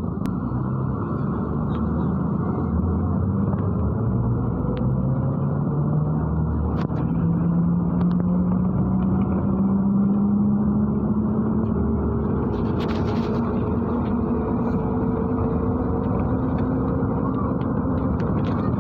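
MAZ-103 city bus on the move: engine and drivetrain running over steady road rumble, with a whine that rises slowly in pitch as the bus picks up speed, then holds.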